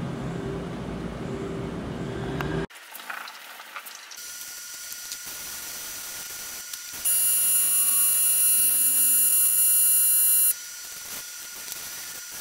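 Air-fed paint spray gun hissing in a steady burst of about three and a half seconds, with a fainter hiss before it. At the start a louder low droning sound cuts off suddenly.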